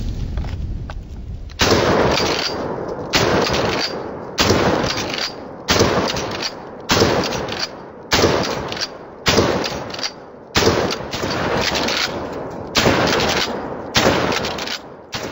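A shotgun fired repeatedly at a steady pace, about one shot every 1.2 seconds, each blast trailing off in a long echo. A low rumble comes before the first shot, about a second and a half in.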